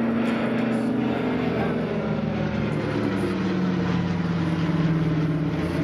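Twin radial piston engines of a Douglas DC-3 flying past in a steady drone, the pitch dropping a couple of seconds in as the aircraft passes.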